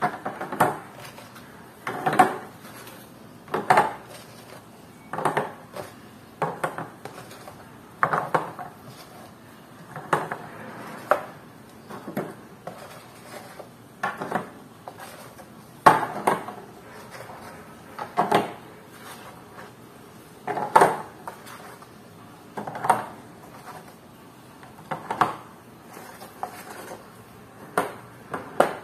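Dishes and cutlery clinking and clattering in short bursts, one every second and a half to two seconds, as they are handled and set down.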